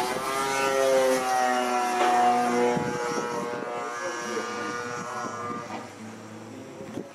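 26cc gas engine of a 70-inch Extra 260 RC model plane running in flight, with a steady propeller drone. Its pitch sways and falls about a second in. It is loudest for the first couple of seconds, then fades as the plane flies farther off.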